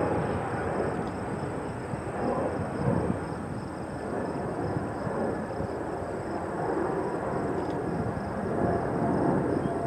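Jet airliner engine noise: a steady rushing drone that swells and eases a little without stopping.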